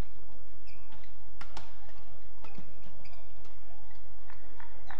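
Badminton rally: racket strings striking the shuttlecock again and again in a quick exchange, with short squeaks of shoes on the court mat between the hits, over the hum of an indoor arena.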